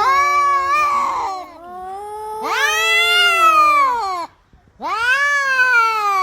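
Domestic cat meowing: three long, drawn-out meows, each rising then falling in pitch, with short pauses between them.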